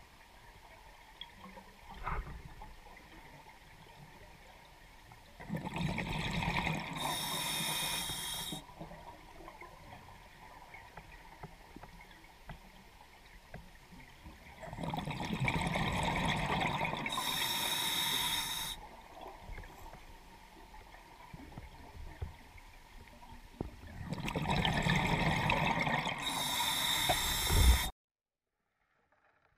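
Scuba diver breathing through a regulator underwater: three breaths about nine seconds apart, each a bubbling rush followed by a higher hiss. There is a short knock about two seconds in, and the sound cuts off suddenly near the end.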